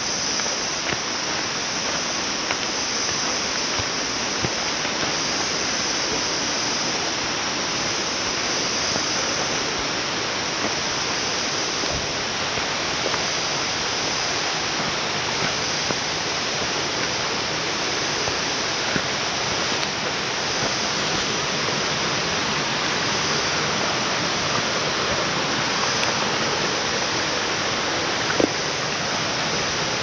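Steady rushing water, like a forest stream or waterfall, with a constant high hiss on top and a few faint ticks.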